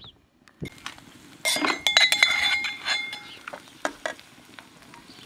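A metal spoon clinking and scraping against a brass bowl and a steel wok, with a metallic ring, as ground walnuts are spooned into the pan; the clinks bunch together between about one and a half and three seconds in.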